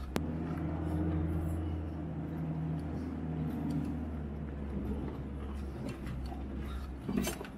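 A vehicle's engine running steadily, heard from inside the cabin while driving over a sandy dirt track. There is a sharp click just after the start and a brief clatter about seven seconds in.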